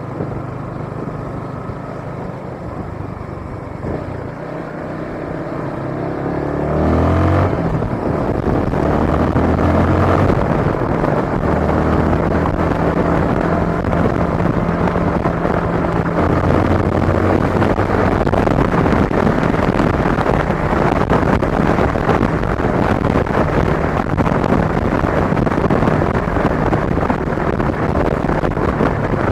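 Yamaha Sniper 155R's single-cylinder 155 cc four-stroke engine pulling away, its pitch rising about six to seven seconds in, then running steadily at speed under a dense rushing noise.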